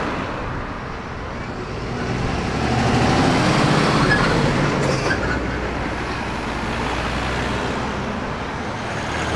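Cars passing close by on a road, tyre and engine noise swelling and fading as each one goes past, loudest about three to four seconds in.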